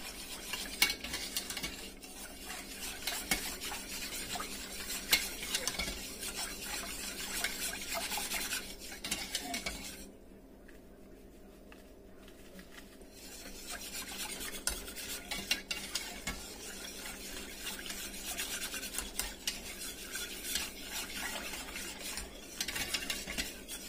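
Wire whisk beating and scraping against a stainless steel saucepan, mixing gumbo base into cold water so it won't be lumpy. The whisking pauses for about three seconds around ten seconds in, then goes on.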